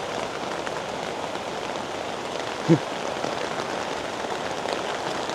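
Steady rain falling on a garden, an even hiss of drops. A single short pitched sound, falling in pitch, breaks in briefly about halfway through.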